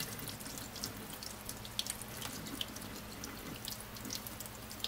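Faint trickling and dripping of liquid into a kitchen sink as rinsed cottage cheese curds drain through cheesecloth, with a few small wet ticks and squishes as fingers work the curds.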